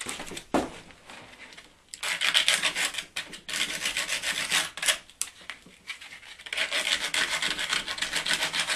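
Rusty battery-charger clamp contacts being scrubbed clean by hand, in two bouts of quick scraping strokes, to get rid of the rust that stops them making contact.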